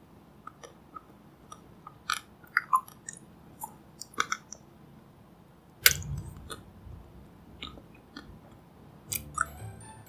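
Close-miked mouth sounds of eating ice cream off a wooden stick: scattered wet smacks and clicks, with a louder bite about six seconds in. Light music comes in near the end.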